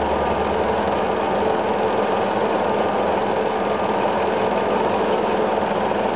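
A steady mechanical running sound, like a motor, at an even level throughout.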